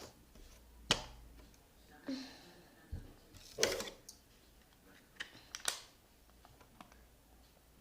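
Slime being handled in the hands: a few short, scattered clicks and squelches, the loudest about three and a half seconds in.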